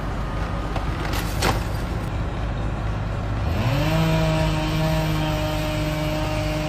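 A sharp knock about a second and a half in. About three and a half seconds in, an engine speeds up quickly and then runs at a steady, slowly sagging pitch.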